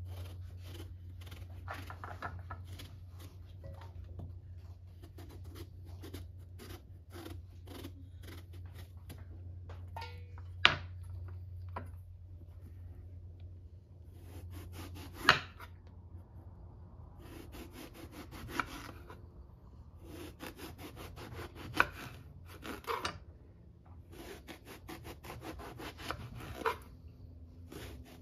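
Kitchen knife peeling and slicing an eggplant on a wooden cutting board: a run of short scraping strokes as the skin comes off in strips, with a few sharp knocks of the blade on the board.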